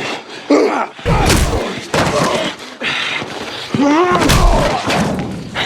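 A fistfight: several heavy punch thuds landing about a second apart, mixed with men's grunts and a long strained shout about four seconds in.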